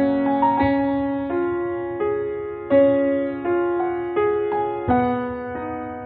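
Slow instrumental piano music: single notes and chords struck one after another and left to ring, easing off near the end.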